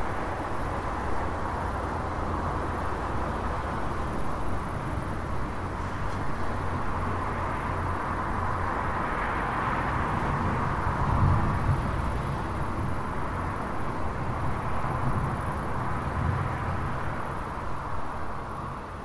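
Thunderstorm and car ambience: a steady rushing noise, with a deeper rumble swelling about halfway through and easing off again. The sound fades down near the end.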